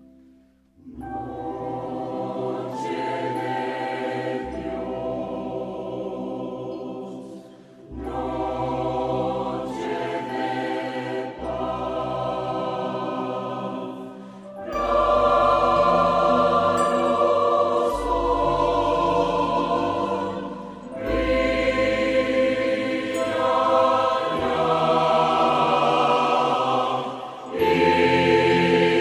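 Mixed choir of men's and women's voices singing a Christmas carol in full chords, in phrases of several seconds with short breaks between them. It grows louder about halfway through.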